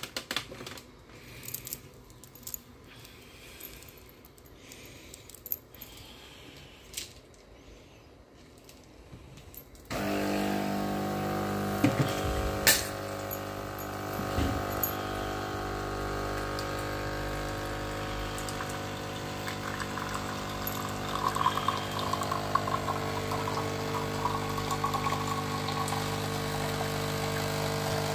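Light clicks and taps on a De'Longhi capsule coffee machine's controls. About ten seconds in, its pump starts with a sudden steady hum and keeps running while the coffee is brewed into a mug. A couple of sharp knocks come soon after the start, and a rougher crackling sound joins in later.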